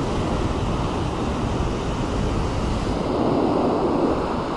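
Ocean surf breaking and washing up a sandy beach, a steady rush that swells a little about three seconds in, with wind rumbling on the microphone.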